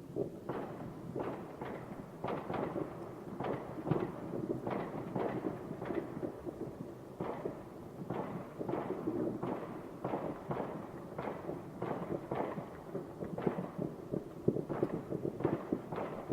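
Distant fireworks going off in a near-continuous run of bangs and pops, several a second, each with a rumbling echo, over a steady low rumble.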